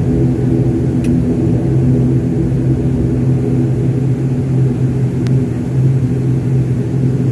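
Airliner engines running with a steady low hum and rumble, heard from inside the passenger cabin while the plane rolls along the runway. Two faint clicks come about a second in and again near the end.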